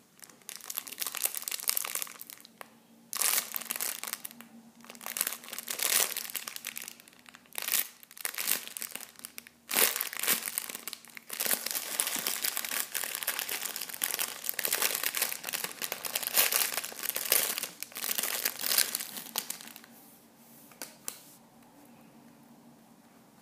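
Clear plastic packaging bag crinkling in repeated bouts as hands squeeze a foam strawberry squishy toy inside it, dying down near the end.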